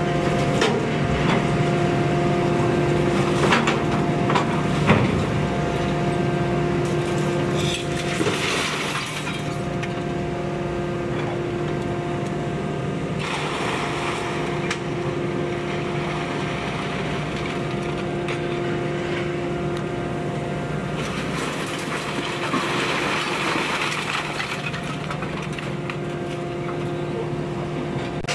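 Heavy machinery running with a steady hum while scrap metal is loaded into a hydraulic scrap press: a few sharp metal clanks a few seconds in, then several spells of rattling, clattering scrap.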